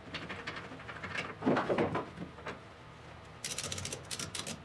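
Ratchet tie-down strap being handled and tightened: scattered knocks and a rustle of the webbing and buckle, then from about three and a half seconds in a fast run of sharp clicks as the ratchet handle is cranked.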